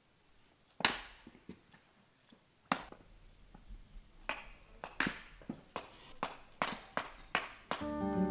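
A hatchet chopping firewood on a wooden chopping block: two single heavy strikes with a ringing crack, then a quicker run of lighter knocks, about two or three a second.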